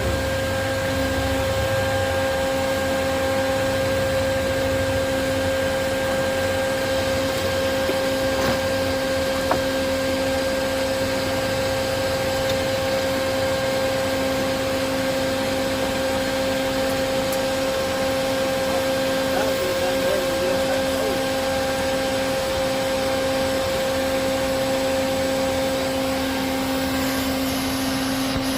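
Vacuum motor running steadily with a constant whine, used to suck up honeybees from a hive in a building's ceiling.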